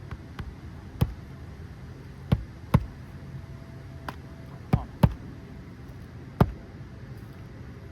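A hammer driving a roofing nail through an asphalt shingle: about half a dozen sharp strikes at an uneven pace, two of them in quick pairs.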